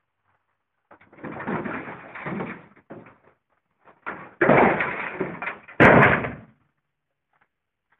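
A pickup truck's body shell being tipped off its frame: noisy scraping and rattling from about a second in, growing louder from about four and a half seconds, then a loud bang near six seconds as the body crashes onto its side on the ground.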